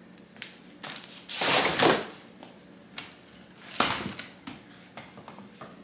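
Handling noise from a Nuna Mixx Next stroller frame being lifted and turned: scattered knocks and rattles, with a longer, louder scraping rustle about a second and a half in and another near four seconds.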